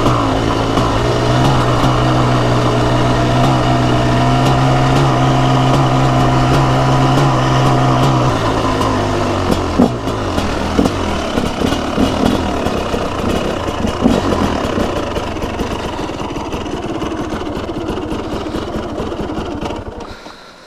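Single-cylinder two-stroke engine of a TM SMR 300 supermoto holding steady revs. About eight seconds in the throttle closes and the engine note falls away into an uneven run-down with a couple of sharp pops, then drops off near the end.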